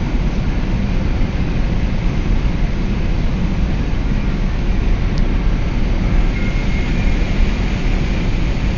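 Steady road noise of a car driving on the highway, strongest in the low end.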